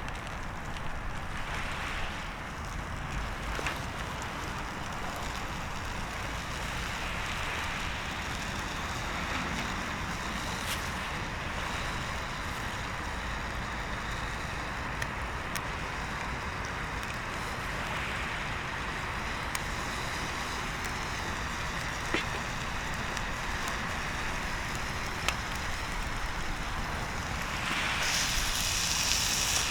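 Bonfire crackling with a few sharp pops over a steady hiss of wind. The hiss grows louder near the end.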